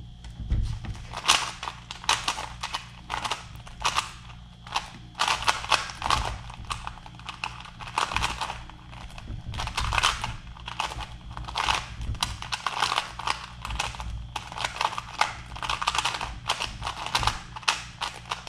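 Lego Rubik's cube being turned fast in a timed speedsolve: rapid, irregular plastic clacking of its layers turning. The cube is tight and hard to turn.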